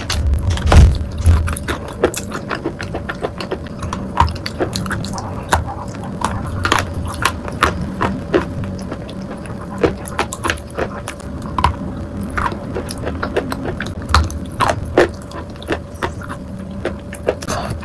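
Close-up chewing and biting of soft wet chalk coated in chalk paste: a run of irregular sharp mouth clicks and smacks, a few a second.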